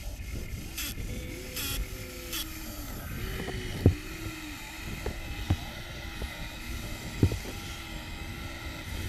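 Small electric motors of Huina RC excavators whining, the pitch rising and falling over and over as the arms and buckets move. There are three short hisses in the first two and a half seconds, and sharp knocks about four, five and a half and seven seconds in; the first knock is the loudest.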